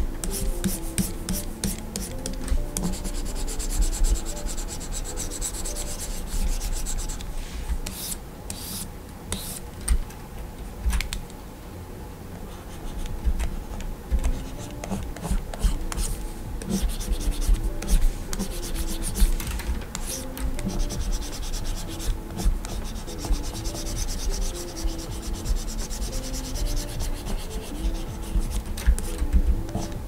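Stylus nib scratching and rubbing across the screen of a Gaomon PD2200 pen display, in runs of quick sketching strokes with short pauses between.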